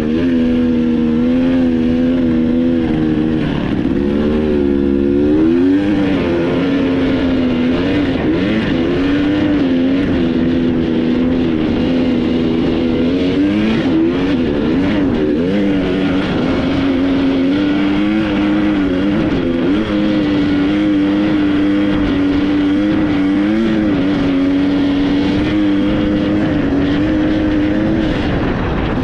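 Vehicle engine running steadily while driving, its pitch wavering up and down with the throttle, over a constant rush of noise.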